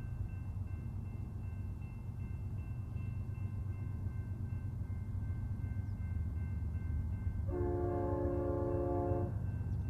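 A distant BNSF diesel freight locomotive's horn sounds one steady blast lasting under two seconds, starting about seven and a half seconds in, over a low steady rumble.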